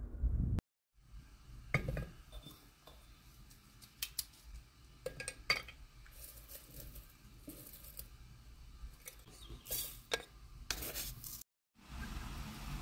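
Scattered light clinks and knocks of glass and metal: a glass tea jar and its lid being handled and dried tea being put into a stainless-steel infuser in a glass teapot. A steady hiss comes in near the end.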